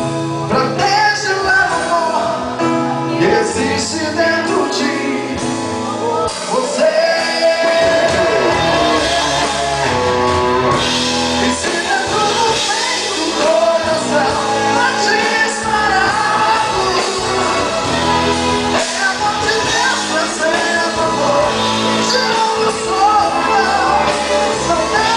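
Live band playing a Christian pop-rock song, with electric guitar, bass guitar, drum kit and keyboard, and singing over it.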